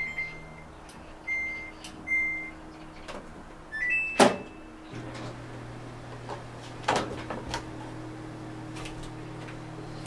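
Washing machine control panel beeping as its buttons are pressed: three short single beeps, then a short rising start chime and a loud click. The machine then starts up with a low steady hum, with a few knocks about seven seconds in.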